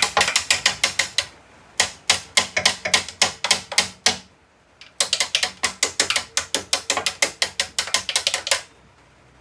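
Ratchet wrench clicking rapidly, about five or six clicks a second, in three runs with short pauses between them.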